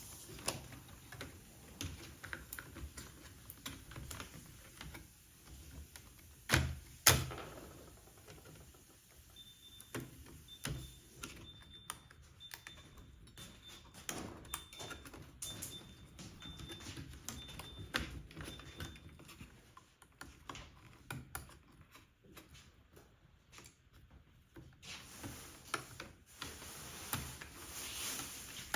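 Small irregular clicks and taps of screws being taken out of a car radio head unit with a screwdriver, with two louder knocks about seven seconds in. A faint high beeping repeats for several seconds midway.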